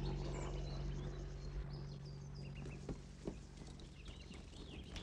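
Faint birds chirping over a steady low hum, with two soft knocks about three seconds in.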